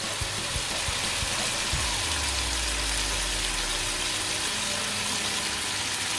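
Chicken strips and garlic frying in hot oil with oyster sauce and light soy sauce just added, a steady sizzle.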